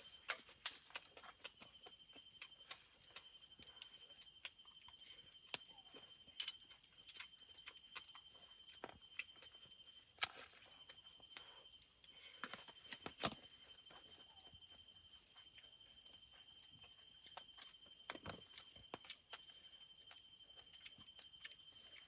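Faint steady insect trilling at two high pitches, with scattered soft clicks and taps from someone eating close by.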